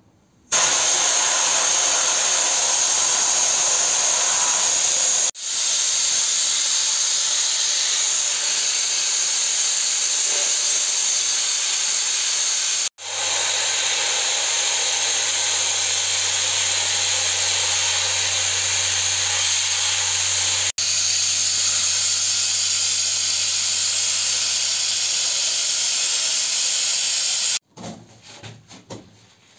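Handheld air sandblasting gun blasting abrasive onto a metal axle part: a loud, steady hiss that breaks off briefly three times, with a low hum underneath in the second half. The hiss stops near the end.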